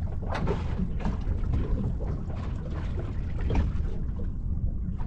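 Wind rumbling on the microphone on a small boat, with water lapping and splashing irregularly against the hull.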